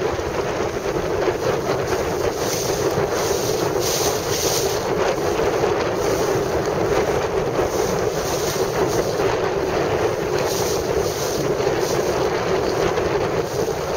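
Strong wind buffeting the microphone over the wash of choppy water, steady and loud throughout.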